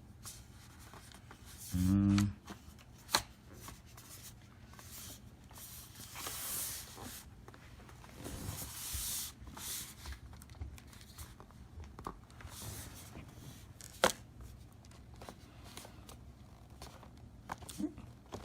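Plastic bottom cover of a laptop being pressed and worked into place over a tight-fitting drive: scattered sharp clicks and scraping and rubbing of the panel. A brief low hum, the loudest sound, about two seconds in.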